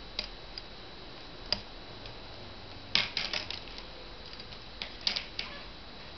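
Scattered light clicks and taps, with quick clusters about three and five seconds in, over a faint steady high-pitched tone.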